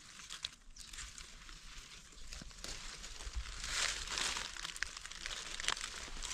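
Dry leaf litter and undergrowth rustling and crackling as someone moves through the forest floor and parts plants by hand. It grows louder about halfway through.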